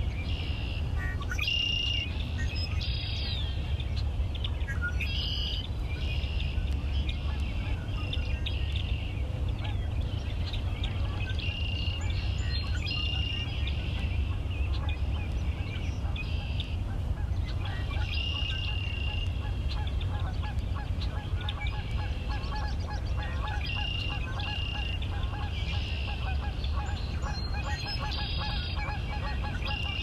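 Geese honking again and again across open water, with other bird calls. A fast pulsing trill sets in about halfway through, over a steady low rumble.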